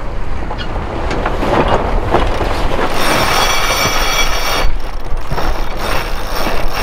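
A sailboat's genoa flapping as it comes across during a tack. From about three seconds in, the cockpit sheet winch ratchets rapidly as the new sheet is hauled in.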